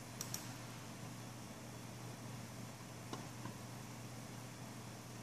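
Steady low hum with a few soft computer mouse clicks: two just after the start and two more about three seconds in.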